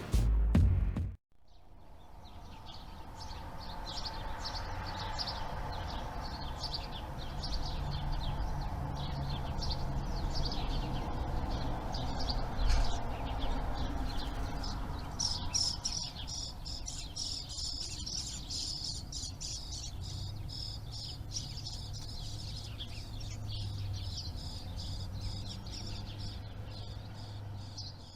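Birds chirping, many short repeated calls over a low steady hum. The sound fades in just after a second in and fades out at the end.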